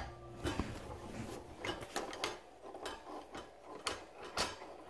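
Scattered clicks and light knocks of metal and plastic parts as a chrome counterweight shaft is fitted onto an equatorial telescope mount; the sharpest knock comes a little after four seconds in.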